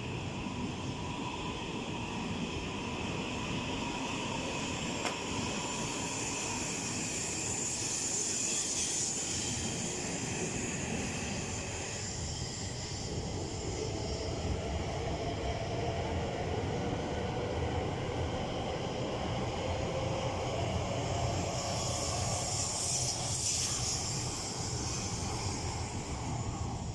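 An E5 and E6 series Shinkansen coupled set pulling out of the station and accelerating past at close range: a steady rumble of wheels on rail with the electric traction motors' whine. A faint tone rises slowly from about halfway through as the train gathers speed.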